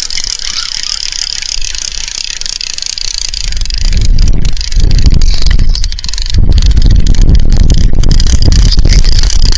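Strong wind buffeting the microphone, a loud uneven low rumble that comes up about three and a half seconds in, over a steady high-pitched hiss.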